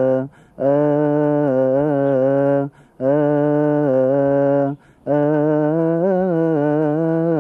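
A man's voice chanting a melismatic Coptic liturgical hymn, holding long vowels in sustained notes of two to three seconds with slight ornamental wavering, each broken by a short breath.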